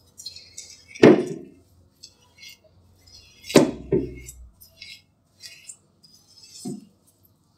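A silicone spatula scraping and beating creamed butter and sugar in a cut-glass bowl, with soft scraping between four sharp knocks against the glass, the loudest about a second in and just past midway.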